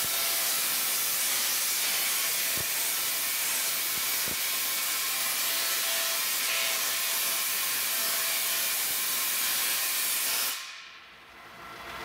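Large Tesla coil firing, its sparks arcing from the toroid to the surrounding wire cage: a loud, steady, hissing discharge noise with a couple of faint snaps about two and a half and four seconds in. It cuts off about ten and a half seconds in.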